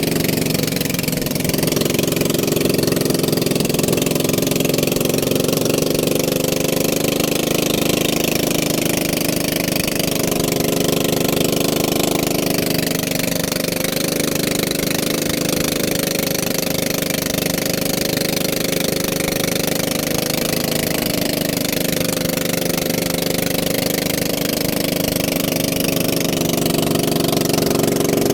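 An engine running steadily, with an even hiss over it.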